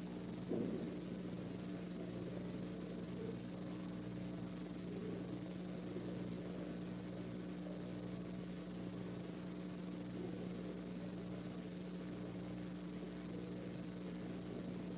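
Steady hiss and electrical hum of an old film soundtrack, with one brief dull sound about half a second in.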